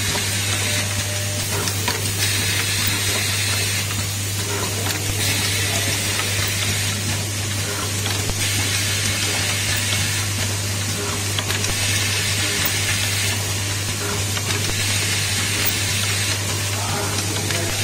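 Automatic bimetal contact riveting machine running: a steady low mains hum, typical of its vibratory bowl feeder, under a hiss that swells and fades about every three seconds as the machine cycles.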